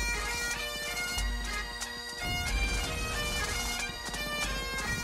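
Great Highland bagpipes playing a lively tune: a quick-moving chanter melody over the steady, unbroken drone.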